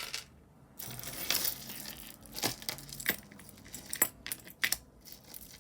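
Small pieces of costume jewelry clicking and clinking as they are handled and sorted, with a few separate sharp clicks over faint rustling.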